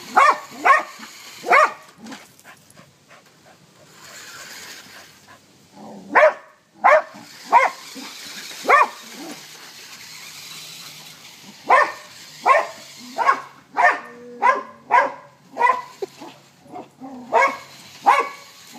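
A dog barking at a remote-control toy truck it is chasing: short, sharp barks in three bouts, a few at the start, four spaced ones about six to nine seconds in, and a quick run of about ten from about twelve seconds on.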